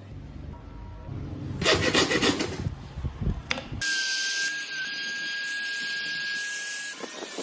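A tool working wood in rapid scraping strokes, like sawing or rasping. About four seconds in it cuts abruptly to a steady, high-pitched whine.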